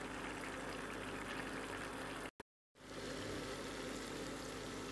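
Potatoes and mushrooms frying in oil in a pan: a steady, even sizzle. It cuts out completely for a moment about halfway through, then resumes.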